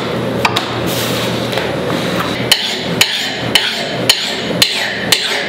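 Hand file worked over the steel edge of an axe head clamped in a vise, sharpening it. From about halfway in come sharp, regular clicks about twice a second, each followed by a short rasp.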